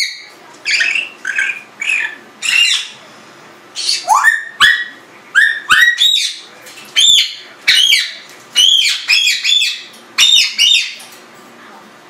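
Congo African grey parrot squawking and whistling in a quick series of short calls, each bending up and down in pitch, with a brief lull partway through and a stop shortly before the end.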